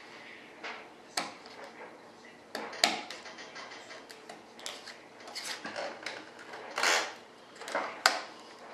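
Hands working modeling clay along the edge of a parting board: scattered short scrapes and rubs with a few sharp clicks and taps, the loudest a click about eight seconds in.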